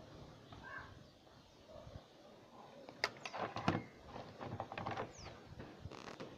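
A cluster of quick clicks and knocks from a plug and wires being handled, about three to five seconds in, otherwise faint.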